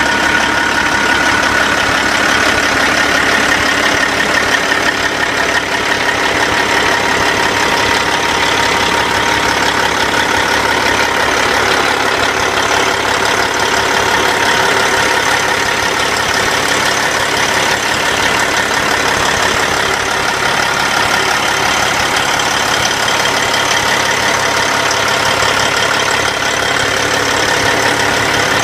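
Caterpillar C15 inline-six diesel engine idling steadily, with a steady high whine above the engine note.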